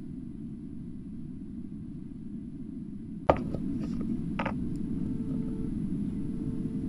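Steady low background noise, then a sharp knock about three seconds in and a lighter click about a second later: handling noise from a phone being set up and adjusted by hand.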